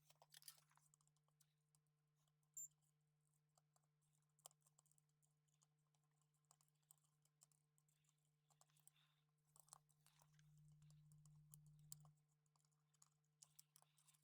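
Near silence: faint scattered clicks and taps of small parts being handled, over a steady low hum.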